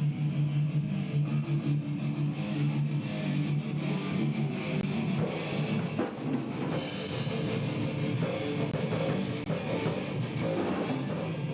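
A heavy rock band plays together: distorted electric guitars, bass guitar and a drum kit, running through a riff for a headphone-mix sound check.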